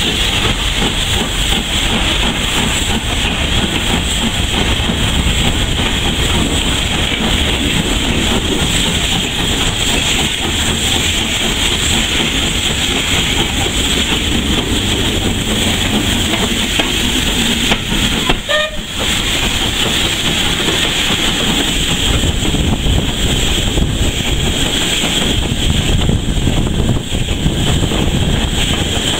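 Steady noise of a steam train with continuous steam hiss, broken by a brief drop in level about two-thirds of the way through.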